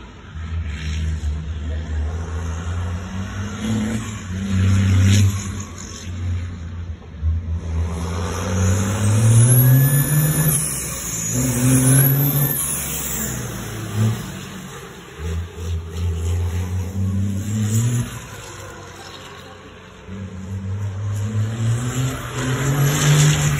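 Volkswagen hybrid racing truck's diesel engine running on the track, its note rising again and again as it accelerates through the gears. It is loudest as the truck passes about ten seconds in, when a high whine rises and falls twice.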